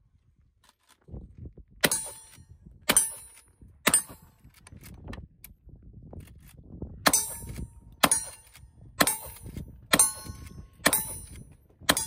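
Lever-action rifle shots at steel targets, each sharp crack followed by the ringing clang of struck steel. Three shots about a second apart, a pause of about three seconds, then six more at about one a second.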